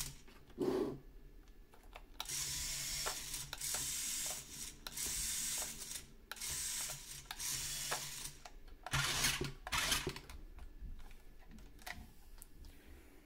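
Toy remote-control car's small electric motors and plastic gears whirring in repeated bursts of a second or two as the remote's controls are pressed, with a short knock about a second in.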